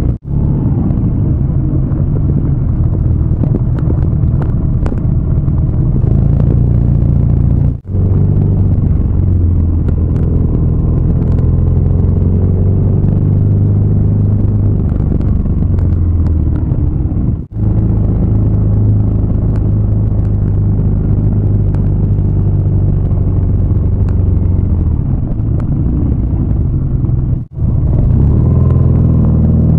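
BMW R nineT boxer-twin engine running under way at a steady cruising pace, with wind rushing past. The sound drops out briefly three times, about a third, halfway and nine-tenths of the way through, where clips are joined, and the engine pitch shifts a little after each break.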